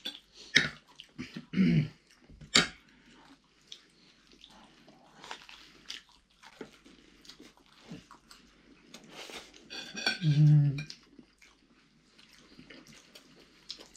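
Cutlery clinking and scraping against plates while people eat, in scattered irregular clicks, louder in the first few seconds. A short voice sound comes about ten seconds in.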